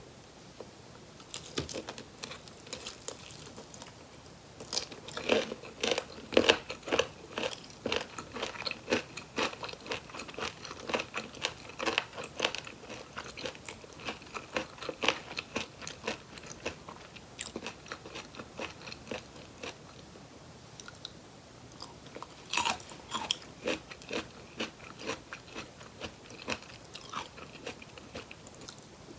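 Close-up eating sounds of Korean fried chicken drumsticks: crisp crunching bites into the fried coating and wet chewing. The loudest bites come about five to seven seconds in and again past the twenty-second mark.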